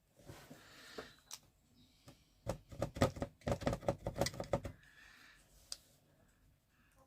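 A quick run of light, rattling clicks and taps from small hard objects being handled, starting about two and a half seconds in and lasting about two seconds, after a soft rustle near the start.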